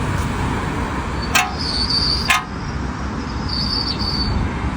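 Steady low rumble of a car on the move, with two sharp clicks a little apart about a second and a half in, and two short high-pitched squeaks.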